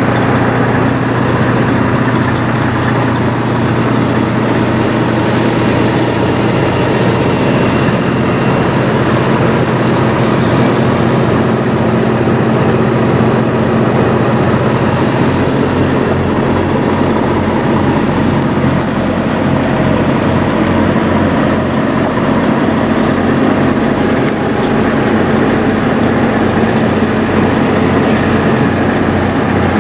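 Semi truck's diesel engine idling steadily, a loud, even low throb close by.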